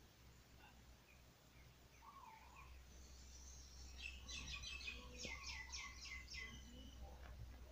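A bird calling: a quick run of about eight to ten sharp, high, evenly repeated notes lasting about two and a half seconds, faint over a steady low hum.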